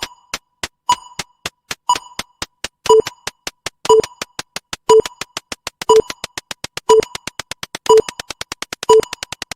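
Electronic countdown-timer sound effect: one beep every second over fast ticking clicks that speed up steadily. A lower second tone joins each beep about three seconds in.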